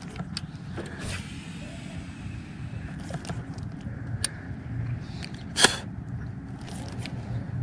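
Steady low engine rumble, with scattered light clicks and one sharper click about five and a half seconds in.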